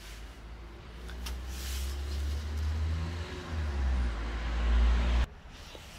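A motor vehicle running close by on the street, a low engine rumble that grows louder and cuts off suddenly about five seconds in.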